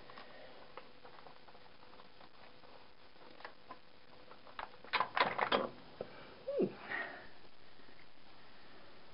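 Small scattered clicks of parts being handled, with a brief cluster of louder sharp clatter about five seconds in and a short squeak falling in pitch just after.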